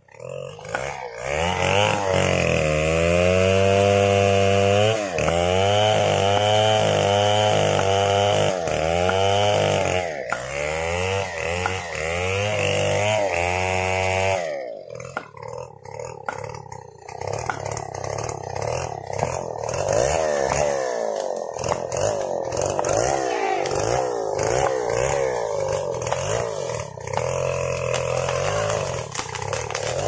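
Stihl 070 two-stroke chainsaw cutting into a mahogany trunk at full throttle, its pitch dipping and rising over and over as the chain bites. About halfway through the saw comes out of the cut and runs lighter, while a wooden mallet knocks repeatedly at the cut.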